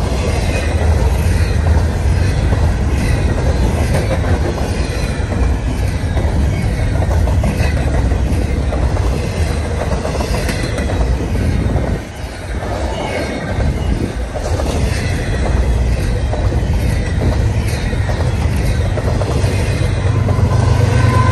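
Double-stack intermodal freight train rolling past: the steady rumble and clatter of well-car wheels on the rails, with some wheel squeal. Near the end a steady tone comes in as the rear distributed-power locomotive, a GE Evolution-series unit, draws near.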